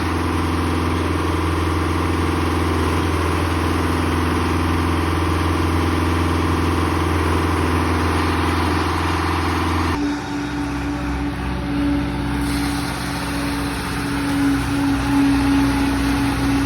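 Concrete mixer truck's engine running steadily. About ten seconds in the sound changes abruptly, and a steady hum-like tone rises above the lower engine note.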